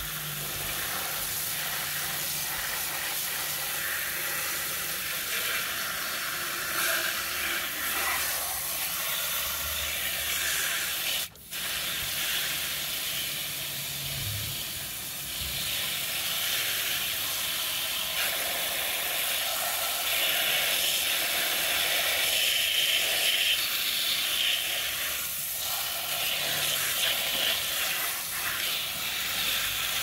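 Water spraying from a pistol-grip hose nozzle onto a plastic toy truck and wet concrete: a steady hiss of spray and splashing, which drops out briefly about eleven seconds in.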